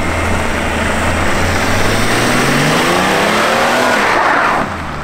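Car engine revving hard, its pitch climbing for about three seconds over a loud rushing noise from the wheels spinning, then dropping back sharply near the end.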